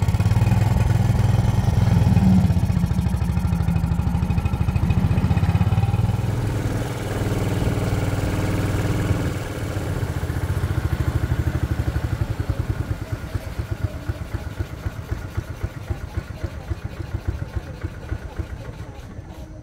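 A small fishing boat's engine running with a steady, fast-pulsing low rumble. It gets somewhat quieter about two-thirds of the way through.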